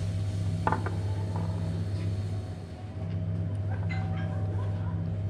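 A steady low mechanical hum, with a brief clink of chopsticks against a ceramic dish about a second in.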